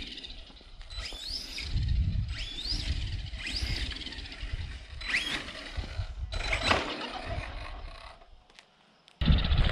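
Arrma Outcast 4S RC truck's brushless motor whining in short throttle bursts, each a quick rising whine, about one a second, over a low rumble. Near the end the sound cuts out briefly and a loud rush of wind noise takes over.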